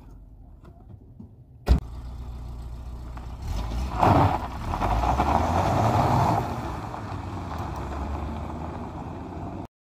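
A single sharp knock like a car door shutting, then a Peugeot 405 sedan's engine runs and pulls away on a dirt road. The sound swells loudest a couple of seconds later, settles to a steady drone, and cuts off suddenly near the end.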